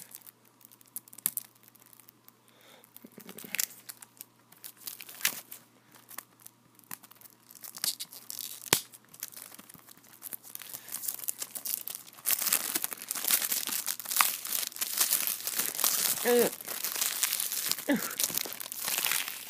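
Plastic shrink-wrap being picked at and torn off a CD jewel case. It starts as scattered crinkles and clicks, then turns into continuous crinkling and tearing from about two-thirds of the way in.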